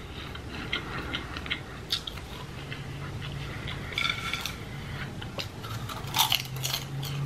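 Buttered microwave popcorn being chewed with soft crunches and crackles. A hand rustles through the bowl of popcorn about four seconds in, followed by a run of crunchy bites about six seconds in, over a faint steady low hum.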